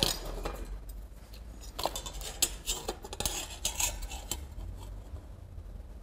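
Hand tools handled on a perforated steel cable tray: a knock right at the start, then a run of light metallic clinks and scrapes from about two to four and a half seconds in, as a steel square is set down and slid into place for marking.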